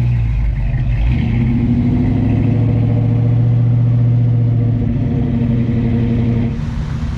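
Car engine running close by with a deep, steady note, then growing a little quieter near the end.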